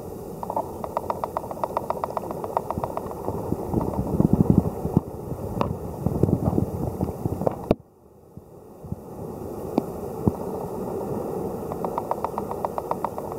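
Water sloshing and gurgling around a camera held underwater in a shallow tidepool, with runs of rapid, evenly spaced clicks and a few louder knocks. The sound drops out suddenly a little past the middle and comes back over about a second.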